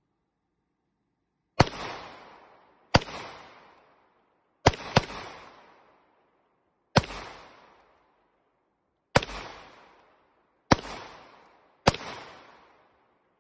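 Eight shots from a semi-automatic handgun firing Fiocchi ammunition, fired one at a time at irregular spacing, with two in quick succession about five seconds in. Each crack is followed by an echo that dies away over a second or so.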